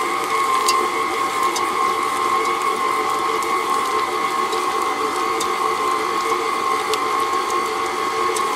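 KitchenAid stand mixer running steadily at low speed, its motor and gearbox giving a constant whine while the flat beater works butter and brown sugar in the stainless steel bowl, with a few faint ticks.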